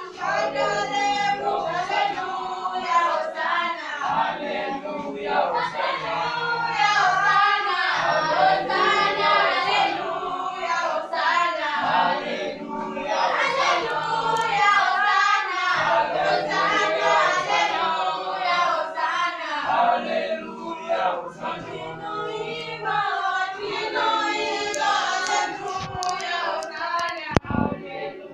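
A church congregation singing together, many voices in a group song.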